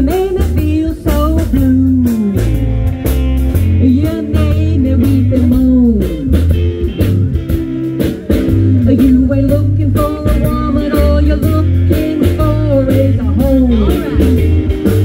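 Up-tempo blues-style rock-and-roll music with a lead line that bends up and down in pitch over a steady bass and drum beat.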